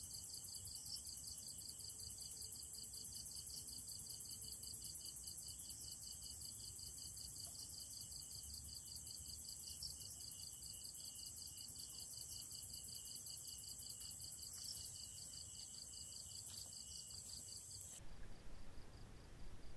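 Night insect chorus of crickets trilling in fast, even pulses, steady and high-pitched. About 18 seconds in the loud chorus stops abruptly, leaving a much fainter single pulsing trill.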